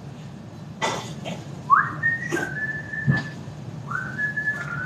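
A person whistling two phrases, each sliding up into a high held note and stepping between two close pitches. Sharp knocks sound about a second in and again around three seconds in.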